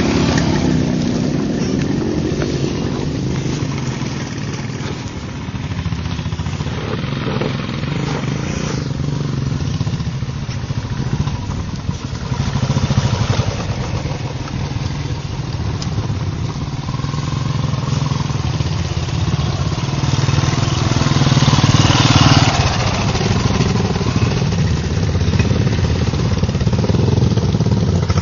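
Motorcycle engines running on a dirt trail, a steady low drone that swells and eases with the throttle, louder a little after twenty seconds in and again near the end as the bikes come down the hill toward the listener.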